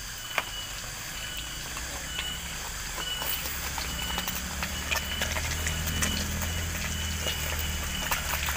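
A wood cooking fire and the hot oil in the wok over it, crackling with scattered sharp pops over a steady hiss. A faint high chirp repeats throughout, and a low hum grows louder over the second half.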